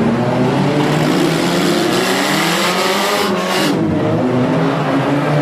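Several demolition-derby car engines revving up and down at once over a wash of tyre and crowd noise, with a brief harsh burst of noise a little past three seconds in.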